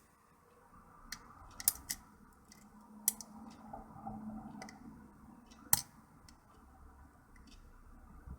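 A hook pick and tension wrench working the pins of an Era rim cylinder lock, with faint scraping and a few sharp metallic clicks spaced well apart.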